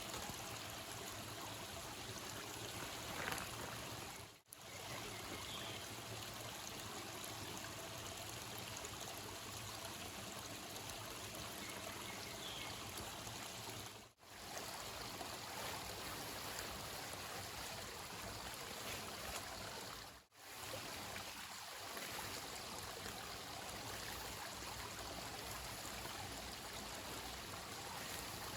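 Steady rush of running water, like a stream, with no words over it. It cuts out abruptly three times, for a moment each.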